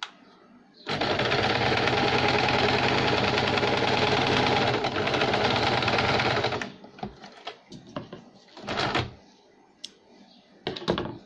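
Electric sewing machine stitching a seam at a steady speed. It starts about a second in and stops after about six seconds, and a few short rustles follow.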